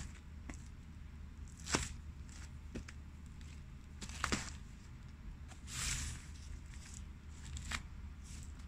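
Pumpkin flesh and seeds being crushed underfoot by hard-soled loafers: a handful of separate wet crunches and squishes, the sharpest about two seconds in and a double one just after four seconds, with a longer squish near six seconds, over a low steady hum.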